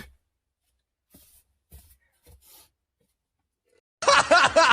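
A few faint, brief soft rustles, then about four seconds in a loud voice over music cuts in abruptly.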